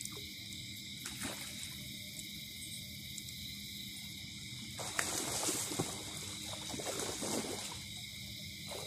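Night insects chirring steadily, with a stretch of irregular rustling and crackling about five seconds in that lasts around three seconds.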